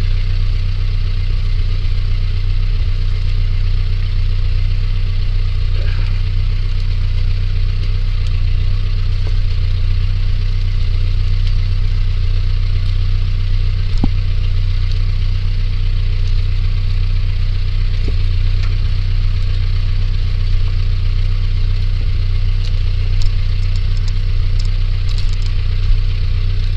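Vehicle engine running steadily with a low, even drone, with a few light knocks or rattles near the end.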